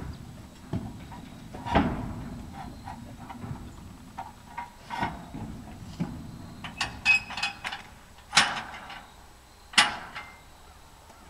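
Steel tube livestock gate being handled and latched: a series of sharp metallic knocks and rattles, one of them ringing briefly.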